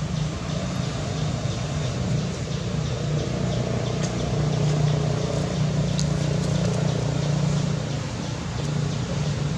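A steady low engine hum, like a motor vehicle running nearby, with a few faint high clicks.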